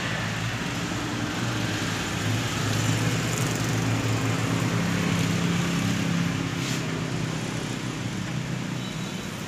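An engine running with a steady low hum, growing louder a few seconds in and easing off toward the end.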